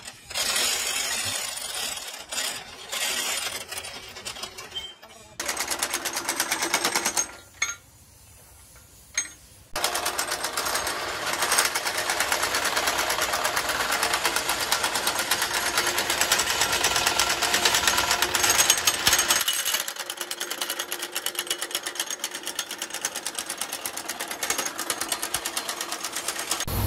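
Heavy impact wrench hammering on excavator track shoe bolts in rapid runs. A short burst is followed by a pause of about two seconds, then a long run that gets a little quieter about two-thirds of the way through.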